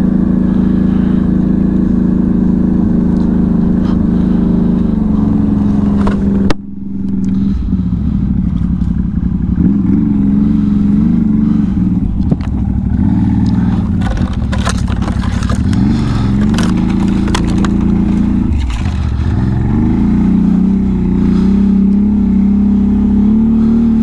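Can-Am Outlander 1000's V-twin engine running under way. Its note holds steady, drops suddenly about six seconds in, then rises and falls with the throttle. Scattered knocks and scrapes come through the middle.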